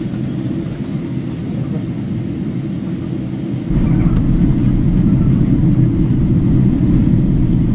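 Airliner cabin noise from a window seat: a steady low rush of jet engines and airflow. It steps up louder about three and a half seconds in.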